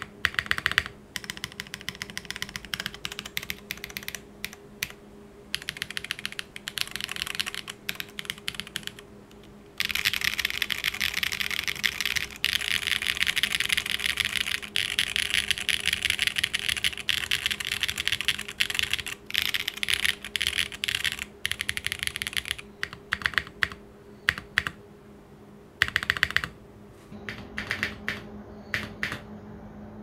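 Monokei x TGR Tomo keyboard with hand-lubed Geon Clear switches on an aluminum plate, no foam, clacking. First come separate presses of the modifier and stabilized keys. From about ten seconds in, fingers roll rapidly across the keys in a dense clatter, and near the end there are a few heavier, separate spacebar presses.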